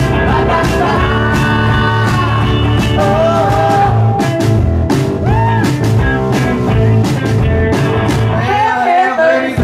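Live rock band playing: electric guitar and drums with a sung vocal line. The bass drops away for a moment near the end.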